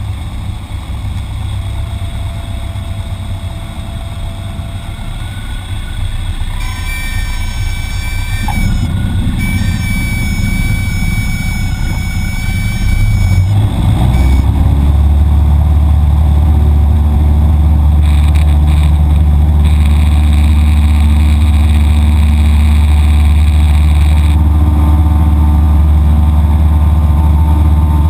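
Cockpit sound of a Cessna 172 landing: engine at low power and air noise, with a steady high tone sounding for several seconds around the middle, broken once. About halfway through the engine note rises and settles into a loud, steady drone as power comes up.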